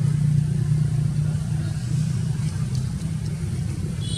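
Steady low rumble of a motor vehicle engine running, with a brief high chirp near the end.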